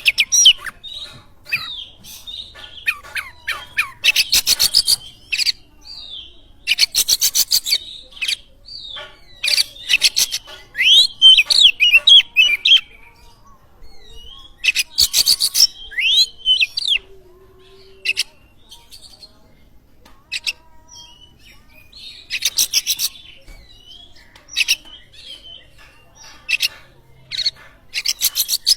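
Oriental magpie-robin singing: whistled notes sweep up and down, mixed with bursts of fast rattling clicks, in phrases separated by short pauses.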